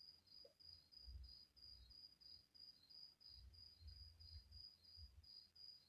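Faint cricket chirping: a high, even pulse repeated about three times a second over near silence.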